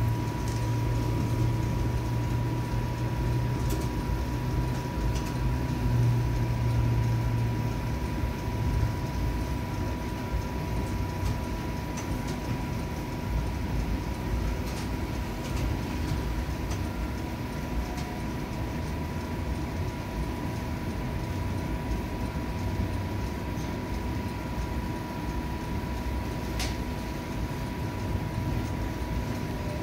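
Inside a TTC streetcar as it pulls into a station loop: a steady low rumble of the car running on its rails, with a constant high whine throughout. A heavier low hum fills the first several seconds, and a few faint clicks sound now and then.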